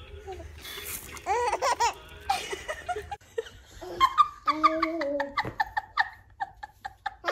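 Bursts of laughter, a baby's laughing among them, breaking off into a run of short quick laughs near the end.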